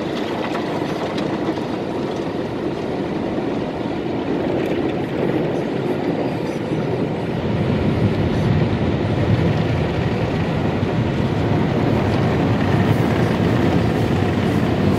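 Automatic car wash heard from inside the car: the steady noise of water spray and spinning cloth brushes working over the roof and windshield, growing louder about halfway through.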